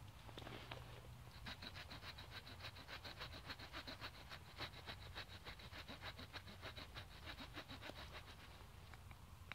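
The small wood-saw blade of a Victorinox Handyman pocket knife sawing a notch into a freshly cut hazel stick: faint, quick, even strokes that start about a second and a half in.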